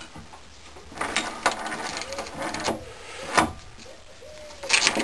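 Scattered knocks and clinks of metal engine parts being handled on a wooden shelf, loudest about three and a half seconds in and again near the end. A few faint, short tones that rise and fall sit between them.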